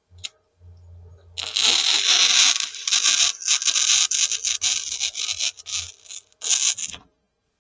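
Flux-core wire welder arc crackling on thin sheet metal at a low heat setting. A faint low hum comes first, then the arc runs steadily for about a second and a half before sputtering into short bursts. A last short burst comes about six and a half seconds in, and then it stops.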